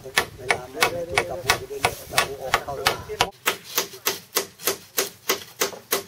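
Rapid, evenly spaced knocking, about three strokes a second, with voices chattering faintly through the first half.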